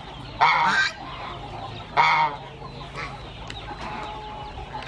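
Chickens calling: two loud calls, about half a second in and about two seconds in, with softer clucking between and after.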